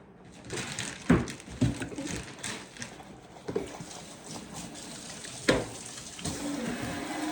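Wet chewing and slurping of an orange being eaten close up, with a few sharp smacking clicks.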